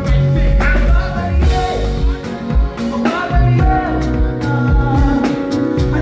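Live band playing a song, with heavy bass and regular drum hits under a singing voice.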